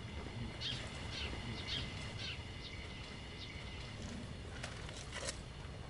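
Small birds chirping in a run of short, quick calls over a low outdoor rumble, with a few faint clicks near the end.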